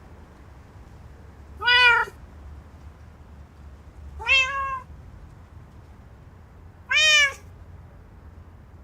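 A cat meowing three times, about two and a half seconds apart, each meow short and arching up then down in pitch, over a steady low hum.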